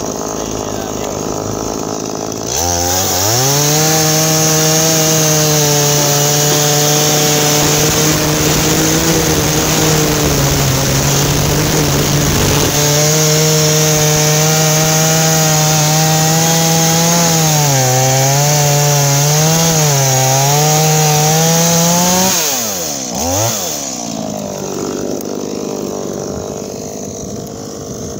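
Stihl MS170 two-stroke chainsaw idling, then opened up to full throttle about two and a half seconds in and cutting through a log. The pitch sags and wavers as the chain loads in the wood. After about twenty seconds it is let off and drops back to idle.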